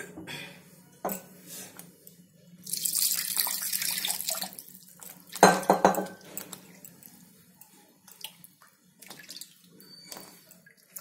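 Water running into a mixer-grinder jar for about two seconds to rinse out the last of the spinach paste, followed just past halfway by a louder slosh and knock, with scattered small knocks around it.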